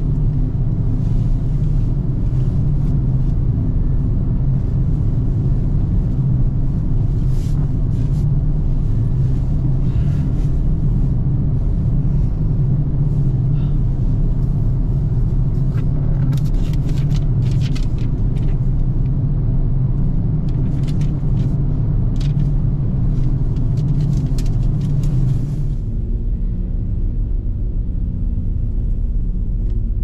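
A vehicle's engine running with a steady low rumble, with scattered clicks and knocks over it. About 26 seconds in, the higher sounds drop away and the rumble changes.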